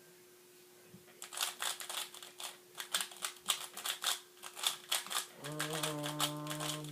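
A plastic speedcube, a MoYu WeiLong GTS2, being turned rapidly: a quick run of sharp clicking layer turns, several a second. Near the end a man hums a long steady "hmm" over the clicks.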